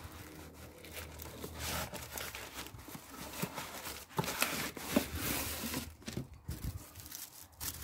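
Rustling and crinkling of shredded cardboard packing and a cardboard box as hands dig out a battery, with a few light knocks about halfway through and the crinkle of the plastic bag wrapped around the battery near the end.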